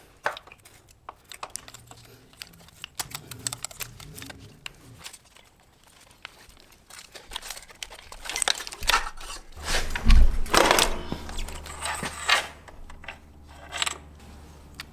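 Hand work on motorcycle parts: scattered clicks, clinks and rustling of parts and tools being handled, busiest and loudest between about eight and twelve seconds in. A steady low hum comes in about nine and a half seconds in.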